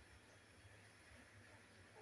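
Near silence: a faint, steady low background hum.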